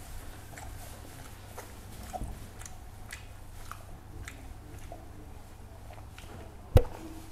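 Chewing and mouth sounds of a person eating rice and fish by hand, with small scattered clicks as the food is picked apart. A single sharp knock near the end is the loudest sound.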